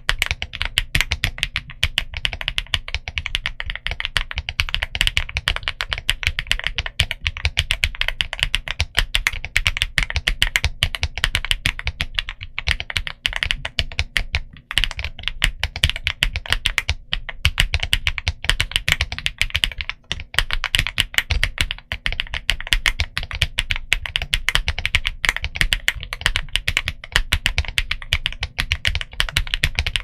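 Continuous fast typing on a Weikav Record V2 mechanical keyboard fitted with MZ Studio Z1 switches and Domikey Semiconductor keycaps: a dense, steady stream of keystrokes with a deep low end and a few brief pauses.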